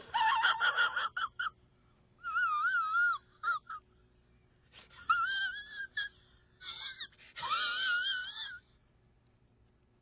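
A high-pitched, wavering crying wail, the well-known sobbing meme sound, in four bursts with short breaks between them.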